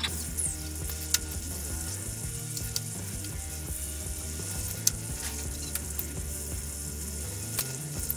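Drill press motor running steadily while an 8 mm twist bit cuts through a metal plate, with a crackling cutting noise and scattered sharp ticks from the chips.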